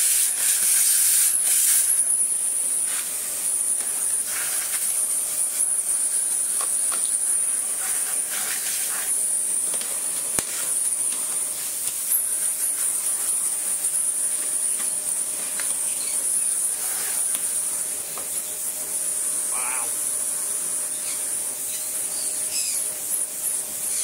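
Victor V9 vacuum cleaner running, sucking dust through its hose and nozzle: a steady rush of air over a constant high motor whine, with a few short knocks as the nozzle hits the plastic housing.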